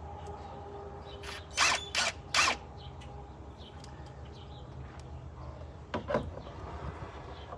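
Hand-tool work on the engine during fuel pump removal: three short, loud rasping bursts close together about a second and a half in, then a few lighter clicks and taps around six seconds.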